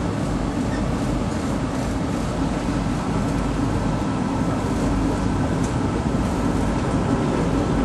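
Steady running noise of a TTC streetcar heard from inside the car as it travels along, an even low rumble with no breaks.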